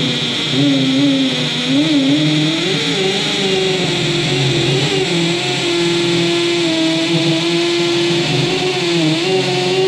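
Milwaukee M18 FUEL brushless cordless hammer drill running in hammer-drill mode, boring a 10 mm carbide-tipped masonry bit into concrete. A steady, loud motor-and-hammer buzz whose pitch wavers up and down as the load changes. The bit goes into the concrete easily.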